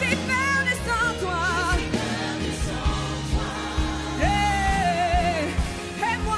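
Live gospel worship song: a woman sings an ornamented melody with vibrato over a band with drums. Near the middle she holds one long note that slides down at its end.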